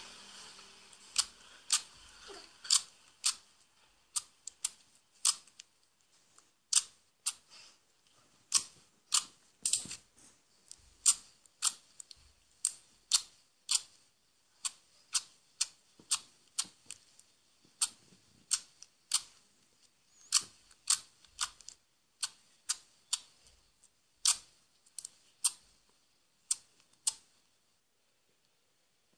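Sharp clicks and pops of slime being pressed and squeezed by hand, roughly two a second at uneven spacing, stopping shortly before the end.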